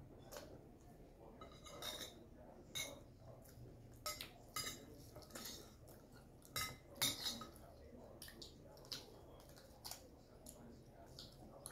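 A metal spoon clinking and scraping against a glass bowl while eating: about a dozen light, irregular clinks, some ringing briefly, with the loudest few about seven seconds in.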